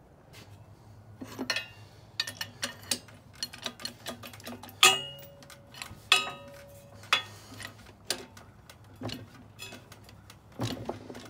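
Steel plate clanking and clicking against the steel frame of a hydraulic tubing bender as it is handled and set in place: a string of irregular metal clicks and knocks, with two sharper clanks that ring briefly about five and six seconds in.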